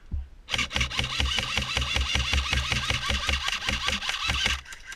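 Airsoft electric gun firing a long full-auto burst: rapid even clatter, about eight to ten shots a second, starting about half a second in and stopping sharply after about four seconds.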